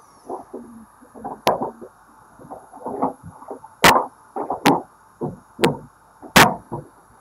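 Dental suction tip gurgling and slurping irregularly as it draws off irrigation fluid and blood during implant drilling, with several sharp clicks, two louder ones in the second half.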